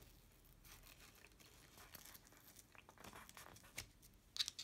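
Faint rustling of card paper being handled and pressed by hand, with a few soft clicks near the end.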